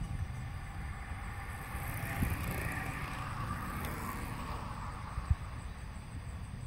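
Road bicycles passing close by: the whir of tyres and hubs swells, peaks two to three seconds in, then fades as they go past. A low rumble runs underneath, with a short thump about five seconds in.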